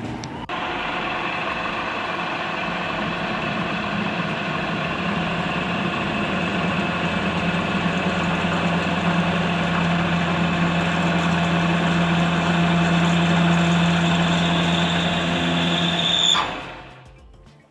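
Metal lathe running with a twist drill in the tailstock boring into a workpiece spinning in the chuck: a steady machine hum with several steady whining tones, cutting off near the end.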